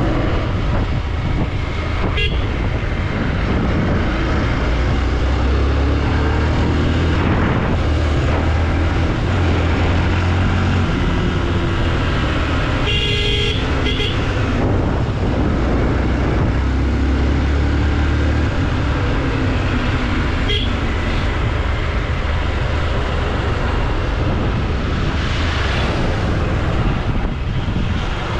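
Motorcycle running at road speed with steady wind and road noise. A vehicle horn toots twice briefly about halfway through.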